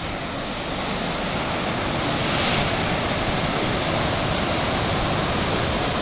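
Heavy, choppy surf breaking over a rocky shore: a steady rush of waves that swells to a peak about two and a half seconds in and then holds.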